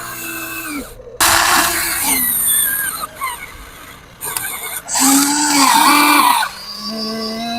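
Electric motors of a Huina 1594 radio-controlled excavator whining, starting and stopping several times with the pitch rising and falling as the machine moves, and a noisier stretch after a brief cut-out about a second in.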